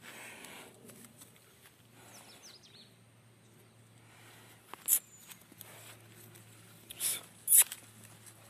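A bull grazing right beside the phone: three short, sharp, noisy bursts, one about five seconds in and two close together near the end, with faint bird chirps in the background.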